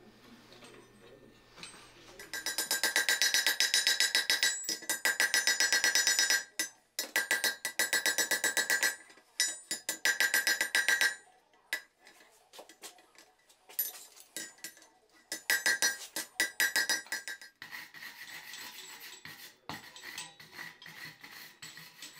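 Hand hammer striking a red-hot iron ring on a steel anvil in fast runs of blows a couple of seconds each, the anvil ringing with every strike, as the joint of the ring is forge-welded closed. The blows turn lighter and more scattered near the end.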